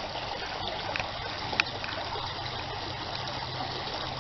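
Creek water running steadily, with a sharp click about a second and a half in.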